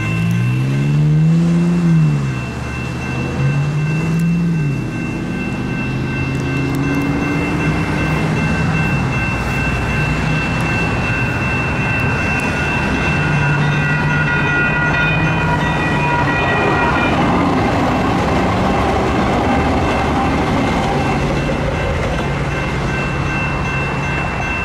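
Railroad crossing electronic bell (GS Type 2 E-bell) ringing continuously on an activated crossing. In the first five seconds a vehicle engine rises and falls in pitch twice, and a broad rushing noise swells about two-thirds of the way in.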